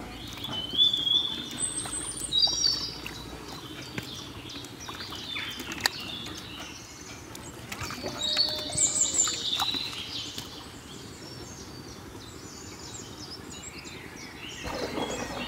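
Birds chirping in two spells of short, high calls, over scattered knocks and light splashing as catfish are lifted out of muddy water.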